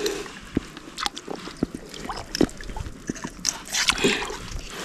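Shallow muddy water sloshing and splashing as a large wallago catfish is handled at the water's edge, with scattered small knocks and clicks and a louder splash near the end.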